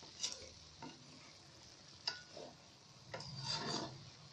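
Wooden spatula stirring and scraping thick cooked urad dal in a metal kadai: a scrape, two short knocks against the pan, then a longer, louder scrape about three seconds in.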